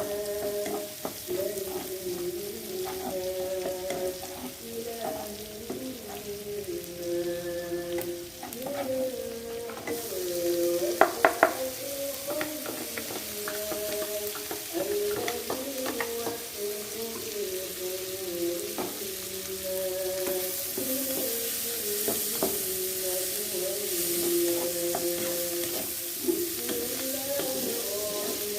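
Salted fish and spices sizzling as they are stir-fried in a pan, with a spatula scraping and clicking against it, and three sharp knocks of the spatula on the pan about eleven seconds in. Soft background music plays throughout.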